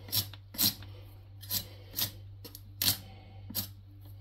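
Hand peeler scraping strips of hard rind off a butternut squash in short, quick strokes, about eight of them at roughly two a second, over a steady low hum.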